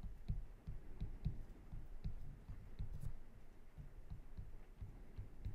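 Faint, irregular taps and clicks of a stylus writing letters on a tablet screen.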